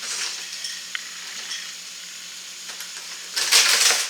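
Cardboard toy box and its packaging being opened and handled: a steady rustling and scraping with a few clicks, then a louder burst of rustling for about half a second near the end.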